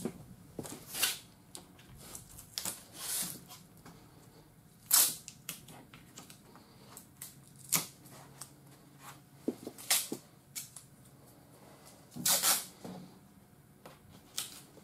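Yellow automotive masking tape being pulled off the roll and torn into short strips: several quick, sharp rips scattered a second or two apart.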